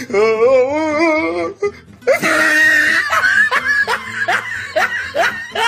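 Laughter over background music: a long, wobbling laugh, then a burst and a run of short laughing syllables, cut off abruptly at the end.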